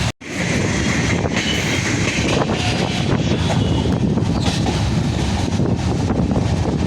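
Train running on the track with a steady, loud rumble and rattle of wheels and cars. The sound drops out for a split second just after the start.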